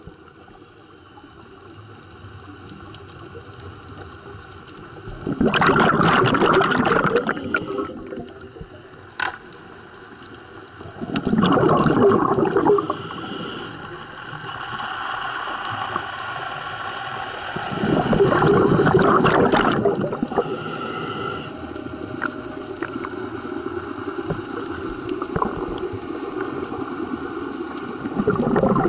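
Scuba diver's exhaled bubbles rushing and gurgling out of the regulator in three loud bursts, one every six or seven seconds, heard underwater through a camera housing, with a steady watery hiss between them. A single sharp click sounds about nine seconds in.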